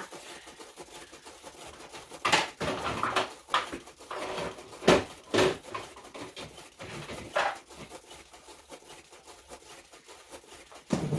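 A handful of separate knocks and clatters, a tray being handled and banged about while it is got ready.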